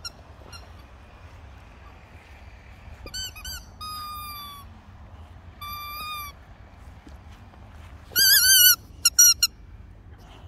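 A rubber squeaky toy squeezed in a boxer dog's jaws, squeaking high-pitched: a couple of quick squeaks about three seconds in, a long squeak just after, another near six seconds, and the loudest run of quick squeaks near the end.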